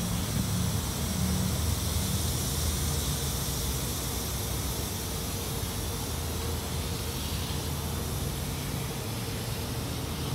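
Steady hiss with a low mechanical hum underneath: the background running of a self-service car wash, its machinery and vehicles.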